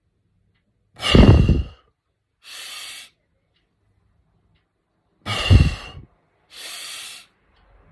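A man's forceful breathing exercise to loosen phlegm from the lungs. There are two loud, hard breaths out through the mouth, each followed by a shorter, quieter breath in through the nose, with a pause of about two seconds between them for holding the breath.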